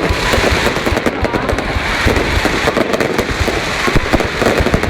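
Fireworks going off in a dense, unbroken run of rapid pops and bangs.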